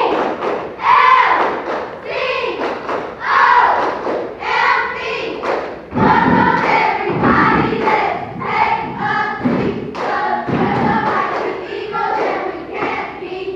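A group of children chanting in unison during a step-dance routine, with heavy thumps of stomping feet, mostly from the middle of the routine onward.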